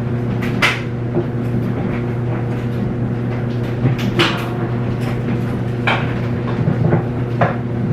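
Steady hum of a running clothes dryer, with scattered knocks and clatter as the agitator is worked loose from a Samsung top-load washer.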